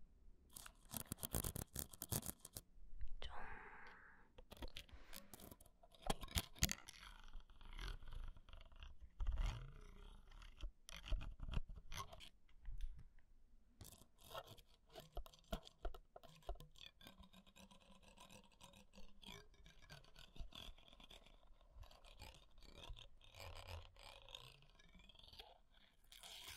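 Close-miked crackling clicks, rubbing and scraping on a microphone, many sharp clicks scattered throughout. Near the end a thin metal ear pick scrapes at the mic capsule, ear-cleaning ASMR style.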